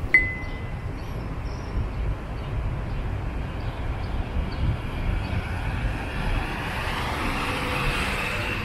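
City street traffic noise: a steady rumble of vehicles, swelling near the end as a vehicle passes close by. A brief high tone sounds right at the start.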